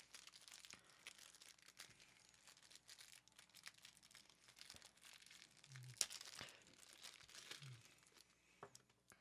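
Faint crinkling and rustling of plastic shrink wrap as shrink-wrapped batteries are handled, with scattered light clicks and one sharper click about six seconds in.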